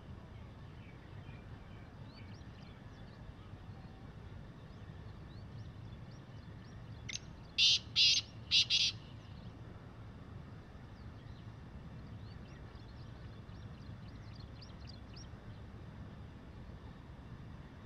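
A black francolin calls once, about seven seconds in: a loud phrase of four quick notes, a short soft one and then three loud ones, lasting about two seconds. Faint chirps of small birds come and go in the background.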